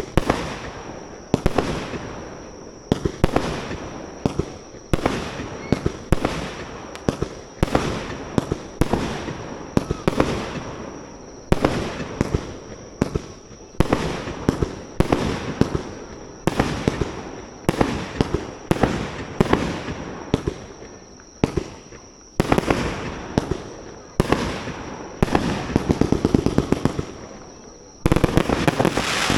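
Fireworks display: a continuous barrage of aerial shell bursts going off several times a second, each bang trailing off. Later on it turns to a crackling haze, and near the end comes a tight flurry of rapid bangs.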